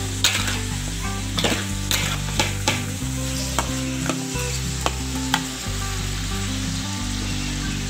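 Duck pieces sizzling as they stir-fry in a wok, with a metal spatula scraping and clinking against the pan about a dozen times, most of them in the first five seconds or so.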